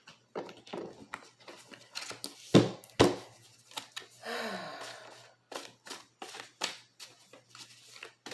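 Tarot cards being handled and shuffled: a run of quick light flicks and snaps of card stock. There are two louder knocks about two and a half and three seconds in.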